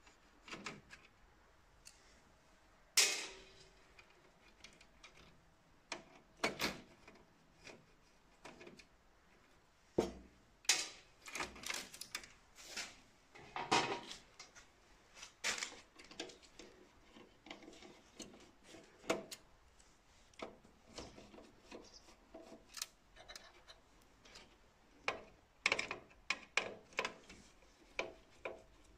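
Screwdriver and hands working inside the opened sheet-metal chassis of an Océ PlotWave 300 scanner: irregular clicks, knocks and light rattles as screws, panels and cables are handled. The sharpest knock comes about three seconds in.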